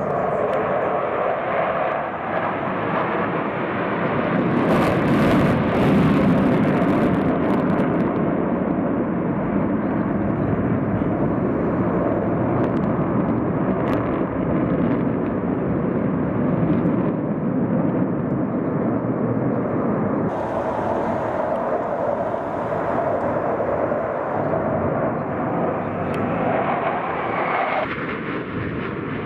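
Jet engines of a formation of Sukhoi Su-30SM fighters flying overhead: a continuous rushing jet roar, swelling louder about five seconds in and then holding steady, with abrupt shifts in tone near the end.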